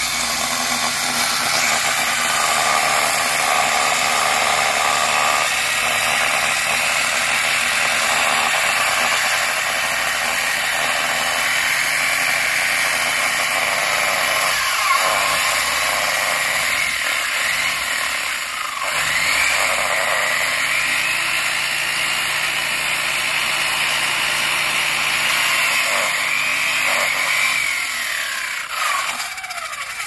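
Handheld electric circular saw cutting into a concrete curb block, running steadily under load, its pitch dipping and recovering several times as the blade bites into the concrete.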